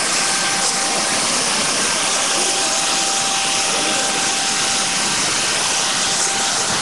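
Jet turbine running steadily: an even, loud rush with a faint steady whine through it.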